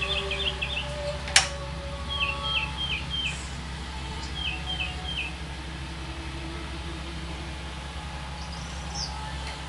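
A bird chirping in short runs of three to five quick notes, several times, over a steady low hum. A single sharp click sounds about a second and a half in.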